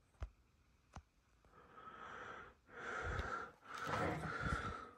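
Two small clicks, then a person breathing out heavily close to the microphone, three long breaths about a second each, the last two louder.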